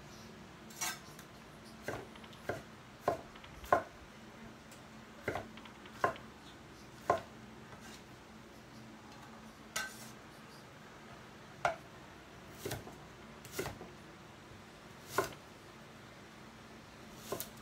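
Knife blade knocking on a wooden cutting board as tomatoes are chopped by hand: single irregular chops, usually a second or so apart, with a few quick pairs.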